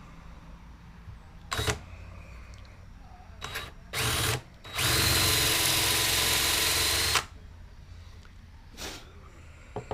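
Electric drill boring into aspen wood, deepening a recess for a compass inset: a few short trigger bursts, then a steady run of about two seconds, and one last short burst near the end.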